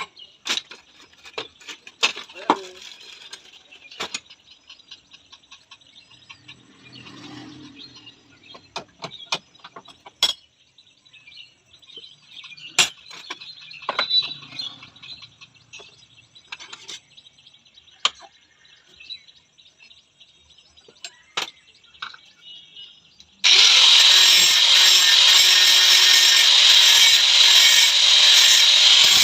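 Scattered clicks and knocks of hand tools working on a motorcycle rear shock absorber. About 23 seconds in, a loud, steady noise starts suddenly and keeps going.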